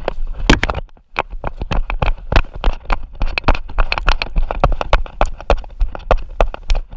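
A dog running with a camera strapped to its body: quick, rhythmic thumps of its paws and the jolting camera mount, several a second, with a brief lull about a second in.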